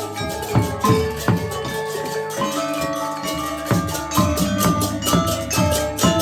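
Balinese gamelan played live: metallophones ringing dense, interlocking struck notes over drum strokes.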